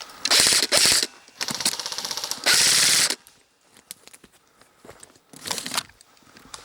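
Airsoft gun firing several rapid full-auto bursts close to the microphone in the first three seconds, then one more short burst near the end.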